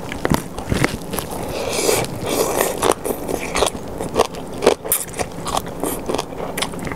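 Close-miked eating of som tam (Thai papaya salad) made with lotus stems: the salad is handled with the fingers, then bitten and chewed, with many sharp crisp crunches and wet mouth clicks.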